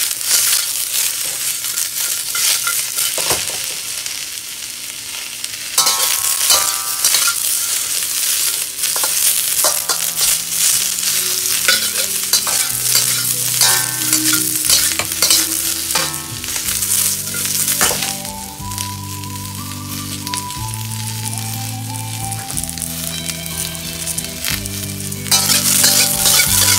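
Sliced onion, yellow bell pepper and scallion sizzling in a hot wok while a metal spatula tosses and scrapes them against the pan. The sizzle grows louder about six seconds in, eases off in the later middle, and rises again near the end.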